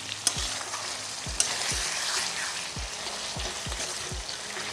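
Chicken and spice masala sizzling in hot oil in a kadai as it is stirred, with two sharp clicks of the spatula against the pan, about a third of a second in and again at about a second and a half.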